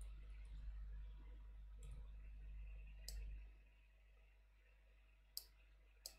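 A few faint, sharp computer mouse clicks, about four spread through the stretch, over a low hum that fades out about halfway.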